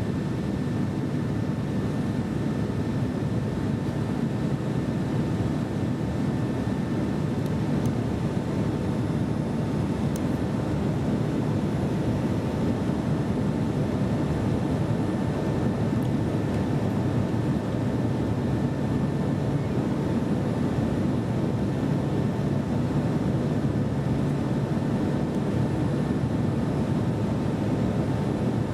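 Steady engine and airflow noise inside a jet airliner's cabin in flight: an even low rumble with a faint constant hum of tones above it.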